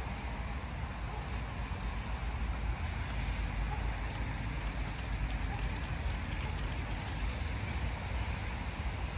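Outdoor city ambience: a steady low rumble of distant traffic with a hiss over it, and a few faint ticks midway.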